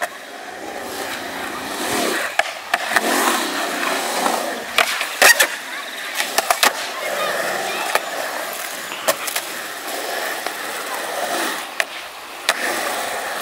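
Skateboard wheels rolling over concrete, broken by sharp clacks of the board hitting the ground and ledges. The loudest clack comes about five seconds in, and a few more follow later.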